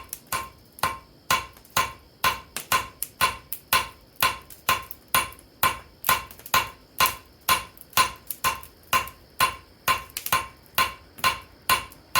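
Blacksmith's hand hammer striking hot steel on an anvil in a steady rhythm of about two to three blows a second, each blow with a short metallic ring, as a leaf shape is forged on the end of a tool handle.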